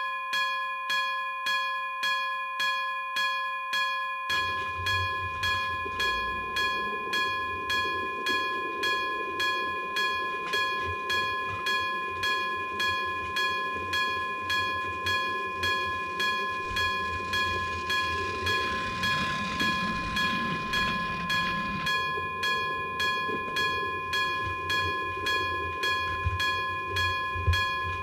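Japanese railroad crossing alarm ringing in a steady rhythm, about two strokes a second. About four seconds in, a passing train's rumble joins it and swells in the middle before easing.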